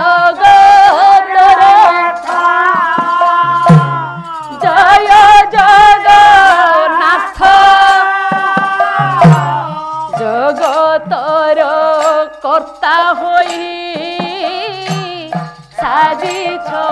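Odia pala kirtan music: a sung devotional melody held in long, wavering notes over drum and cymbal strikes.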